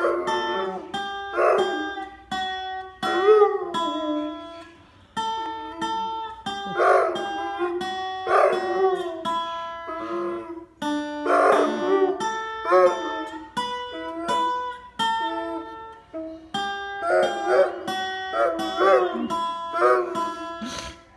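Guitar being plucked, with a hound howling along to it in long calls that bend in pitch, several times over.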